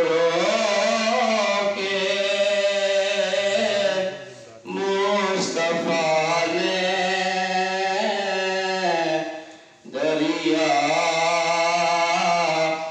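A man reciting a naat, singing unaccompanied in long, drawn-out melodic phrases, with brief breaths about four and a half seconds and ten seconds in.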